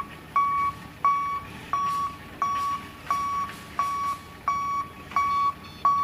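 Forklift's warning beeper sounding a regular series of short, high single-tone beeps, about three beeps every two seconds.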